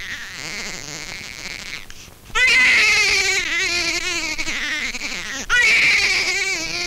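Newborn baby crying in long wavering wails, with a loud fresh wail starting about two seconds in and another about five and a half seconds in: the first cries of a baby just delivered by operation.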